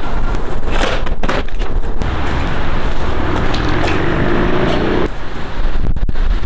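Folding sawhorses being set up and a sheet of half-inch plywood handled and laid across them: knocks and clatter, with a scraping slide from about two seconds in that stops abruptly about five seconds in.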